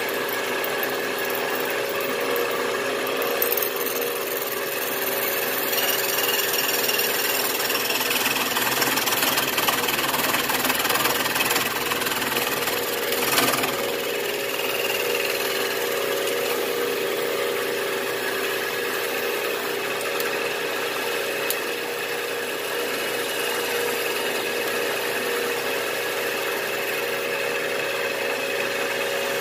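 Milling machine running steadily with a slitting saw cutting a slot in a half-inch aluminium plate: a steady hum under the hiss of the cut, with a brief louder rasp about thirteen seconds in.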